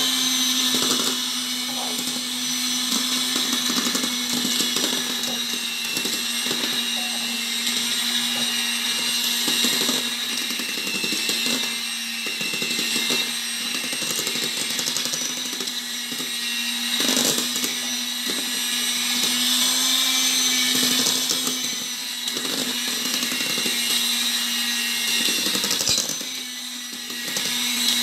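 Electric hand mixer running steadily, its beaters whirring through batter with irregular knocks against the stainless steel bowl. The sound dips briefly near the end.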